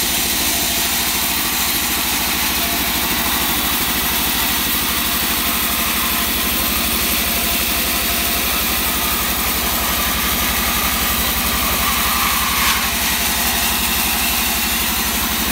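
Sawmill band saw running steadily with an even low pulse from its drive, while a slab of wangkal wood is pushed through the blade.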